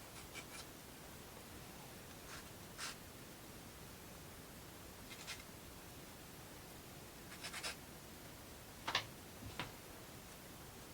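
Faint scattered clicks and short scratchy scrapes from small laser-cut plywood model pieces being handled and worked, with one sharper click about nine seconds in.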